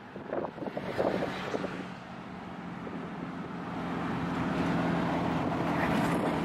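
Engine and road noise inside a moving car's cabin: a steady hum that grows louder and rises in pitch from about three seconds in as the car speeds up.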